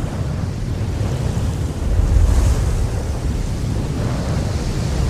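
Placeholder wind sound effect for a sandstorm: a steady rush of wind with a heavy low rumble, swelling about two seconds in.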